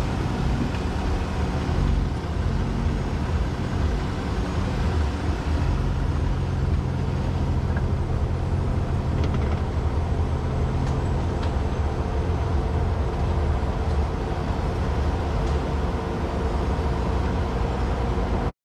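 Off-road vehicle engine running steadily at low crawling speed on a dirt trail, as a low hum, then cutting off abruptly near the end.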